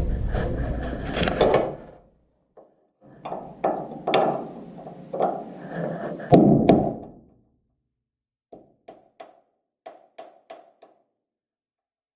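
Hammer blows on steel knocking the ground-down rivets out of a Chevrolet C10 frame's spring-hanger holes. First a rough stretch of clattering and knocks, then, after a pause, a quick run of about eight sharp metallic strikes with a short ring.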